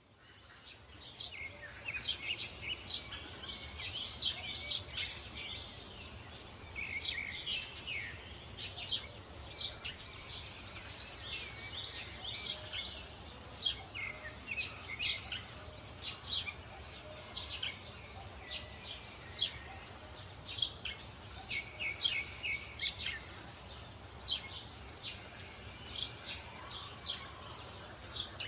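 Birds chirping and trilling, many short calls in quick succession over a steady low background hum.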